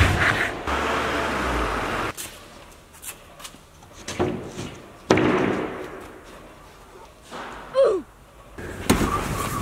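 A large sheet of wooden board being handled and slid into a car boot: its edges scrape and rub in two long stretches, with thuds and a sharp knock near the end.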